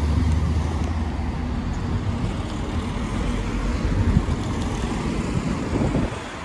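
Street traffic: cars and a van passing on a busy road, a steady mix of engine rumble and tyre noise.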